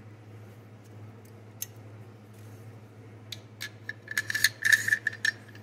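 AR-15 bolt carrier being slid into an upper receiver to test-fit it: scattered light ticks at first, then about three seconds in a quick run of metal-on-metal clicks and scraping with a ringing note.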